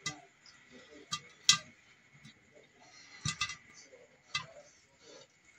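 Popcorn kernels starting to pop in a covered pot with a glass lid: about six sharp, scattered pops at irregular intervals, two of them close together about three seconds in. Only a few kernels are popping yet, the early stage of popping.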